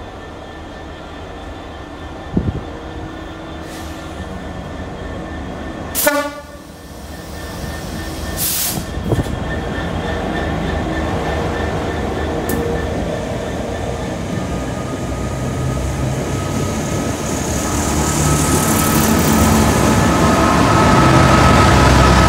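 A rail-head treatment train hauled by GB Railfreight Class 66 diesel-electric locomotives (EMD two-stroke diesels) passing, with a short horn blast about six seconds in. Engine noise and the rumble of the wheels and tank wagons build steadily and are loudest near the end, as the second locomotive draws level.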